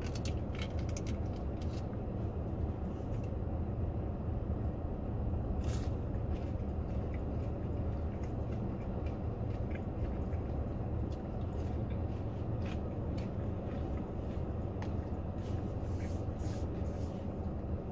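Steady low rumble of a car's cabin, with scattered faint clicks and mouth sounds of someone chewing a chicken nugget, a few more of them near the end.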